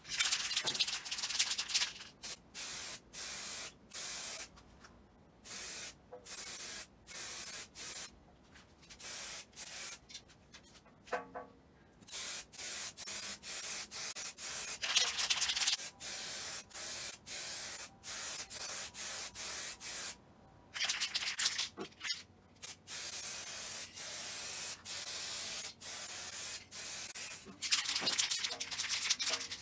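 Aerosol can of two-part urethane clear coat spraying, a hiss in repeated short bursts about a second apart, with a longer burst at the start.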